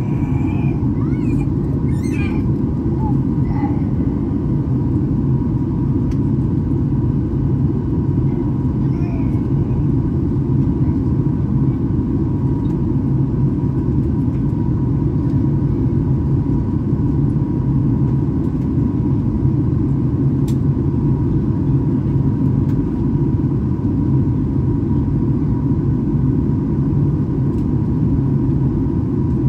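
Steady cabin noise of a Boeing 737 MAX 8 in flight: a dense, even rumble of its CFM LEAP-1B engines and the airflow past the fuselage, with a faint steady high tone.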